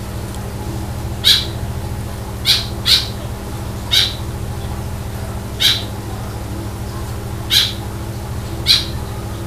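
Squirrel giving seven short, sharp chirps at irregular intervals, over a steady low hum.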